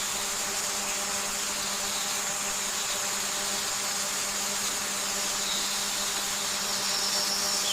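A steady hiss with a faint low hum and a thin high whine, cutting in and out abruptly.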